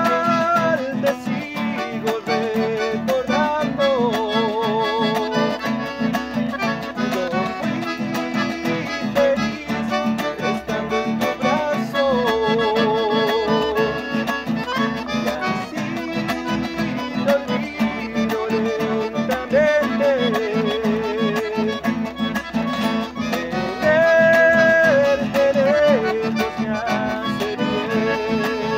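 Accordion and acoustic guitar playing a song together live, the accordion carrying a melody of wavering held notes over a steady strummed rhythm.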